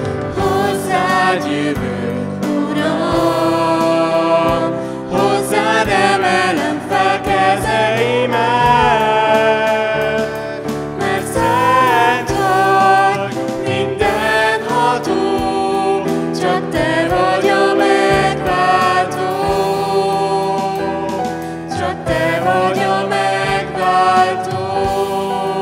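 Live worship band playing a Hungarian praise song: two women and a man singing the words at microphones, over keyboard and drums.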